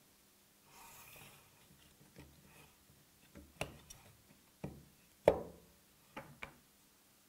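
Plastic vacuum blocks and a suction plate being handled on a wooden workbench: a soft rub, then a handful of separate knocks and clicks, the loudest about five seconds in, as a block is set down and its suction plate is pulled off.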